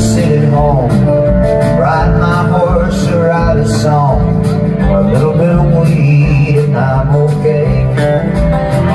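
Live country band playing: acoustic guitar and drums under a lead melody that bends and slides in pitch.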